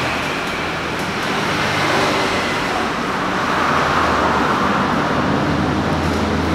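Steady road traffic noise, with motor vehicle engines running.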